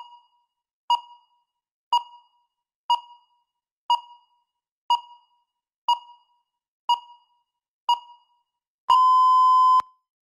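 Countdown timer beeping once a second: nine short, identical electronic beeps, then one longer, steady beep of nearly a second as the timer reaches zero, signalling that the time is up.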